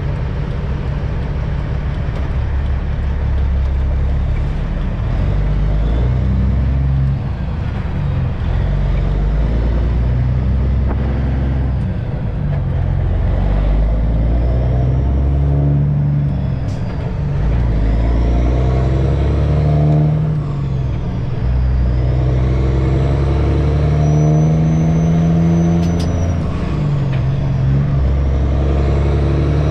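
Semi truck's diesel engine running under way, its note climbing and dropping back in steps several times.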